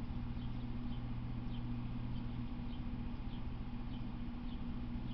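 A steady low hum with faint, short, high chirps repeating about twice a second over it.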